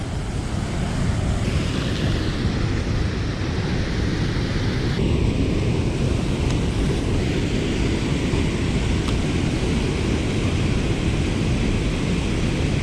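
Waterfall rushing steadily: a constant noise of falling water with a deep rumble underneath.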